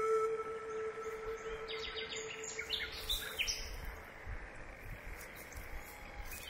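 Small birds chirping in quick clusters of short, high, down-slurred notes over a faint outdoor hiss. A held note of background music fades out during the first couple of seconds.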